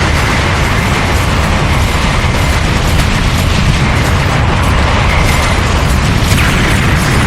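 Loud, continuous rumbling noise with dense crackle throughout, an anime explosion-and-rumble sound effect.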